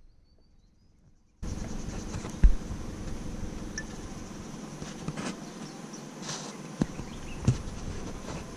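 Forest insects making a steady high shrill, which cuts in suddenly about a second and a half in. A few dull thumps sound over it, the loudest about two and a half seconds in.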